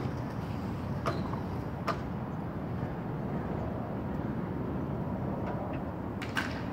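Steady low outdoor background noise, with three brief faint clicks: about a second in, about two seconds in, and near the end.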